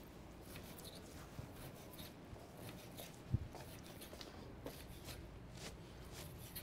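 Faint rustling and light ticks of hands handling paper and things on a kitchen counter, with one dull low thump a little past halfway.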